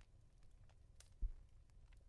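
One soft, dull pat on a pillow about a second in, over faint, scattered fireplace crackles and a low hum.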